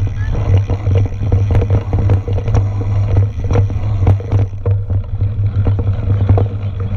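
Mountain bike ridden fast over a bumpy dirt and grass trail, heard from on board: a steady low rumble with frequent rattles and knocks as the bike jolts over the ground.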